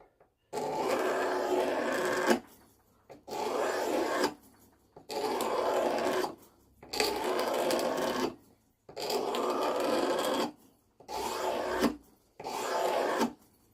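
A utility-knife blade scraping along a wooden hammer handle, smoothing the wood: a series of about seven scraping strokes, each a second or two long, with short pauses between them.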